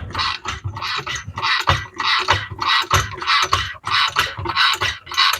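Jack being pumped to raise the Model T's driveshaft assembly: a steady run of rasping strokes with a low thud in each, about two to three a second.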